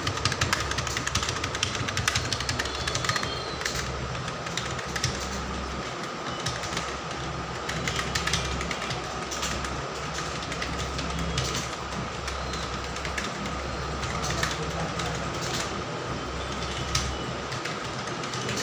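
Computer keyboard keys being typed quickly and unevenly, many short clicks as numbers are entered, over a steady low hum with a faint high whine.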